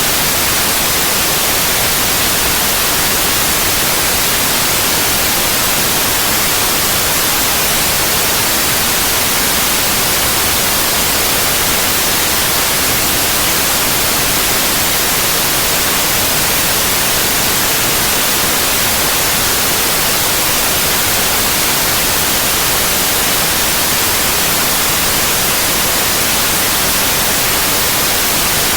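Synthetic white noise: a steady, even hiss with no changes.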